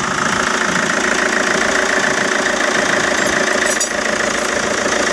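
Hyundai Santa Fe diesel engine idling steadily, with a brief faint click about four seconds in. It runs on a new belt tensioner and alternator pulley, and the noise that the worn tensioner and pulley were making is gone.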